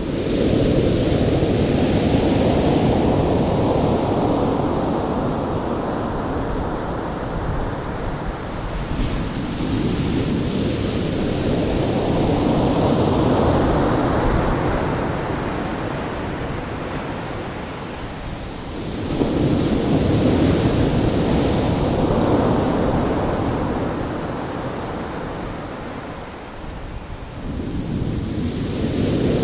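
Ocean surf: waves breaking one after another, a new one surging in about every nine to ten seconds and fading away before the next.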